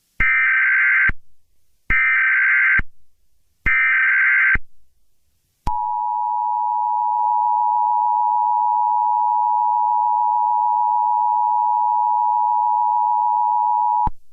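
Emergency Alert System alert opening: three short bursts of SAME header data tones about two seconds apart, then the EAS two-tone attention signal (853 and 960 Hz sounded together), a steady harsh dual tone held about eight seconds that cuts off suddenly.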